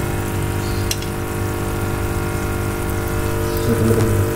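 A small electric pump humming steadily, with a faint click about a second in.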